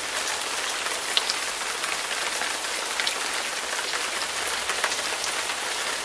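Steady rain falling on leaves: an even hiss with scattered sharper drop ticks.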